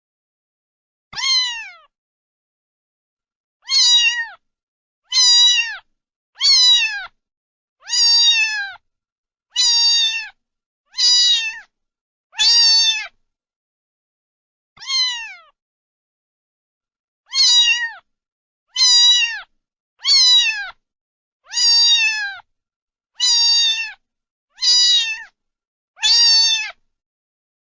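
Domestic cat meowing over and over: about sixteen short meows, each falling in pitch at the end, spaced roughly a second and a half apart, with a few longer gaps.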